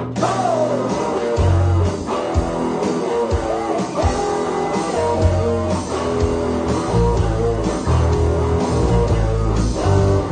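Telecaster electric guitar and electric bass guitar jamming a Raya song in an upbeat rock style, with the bass playing a steady low line under the guitar.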